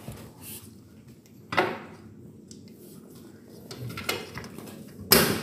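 Hard knocks and clatter from handling the aluminium frame and glass panel at the frame's bottom channel during glazing: a sharp knock about a second and a half in, a lighter one near four seconds, and the loudest just before the end.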